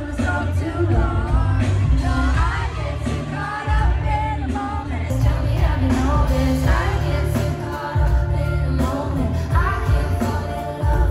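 Live pop-rock band playing in an arena, a female singer's voice over heavy bass and drums.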